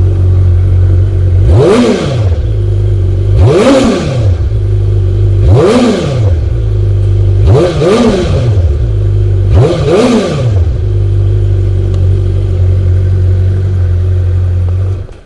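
2009 Suzuki GSX-R750's inline four-cylinder engine idling through its stock Suzuki muffler. It is blipped five times, about every two seconds, each rev rising and falling back to idle. The sound cuts off near the end.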